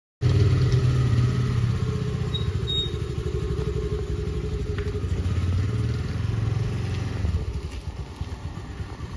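Small motor scooter engine running steadily as the scooter pulls out and rides off, growing a little quieter near the end.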